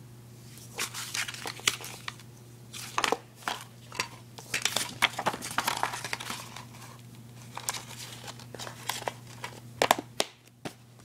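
DVD cases being handled: plastic keep cases and card slipcovers rustling and clicking in irregular bursts, with a brief pause near the end.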